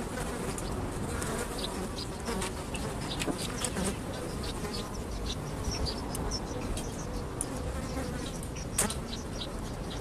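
Flies buzzing in many short, overlapping bursts over a steady background hiss, with one sharper click a little before the end.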